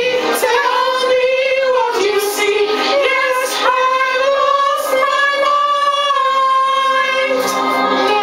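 Three voices singing together in harmony, with long held notes.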